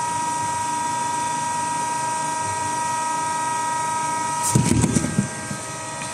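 Hydraulic hot plate plastic ball welding machine running with a steady hum and a held high tone. About four and a half seconds in comes a short burst of clattering knocks, after which the tone drops away.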